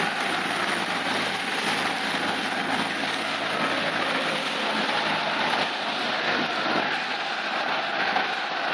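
RAF helicopter running steadily: a constant rush of rotor and turbine noise.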